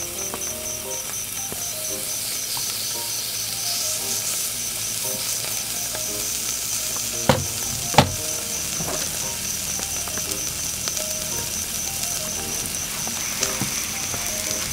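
Meat sizzling on the grate of a small charcoal grill over hot coals, a steady frying hiss, with two sharp clicks about seven and eight seconds in.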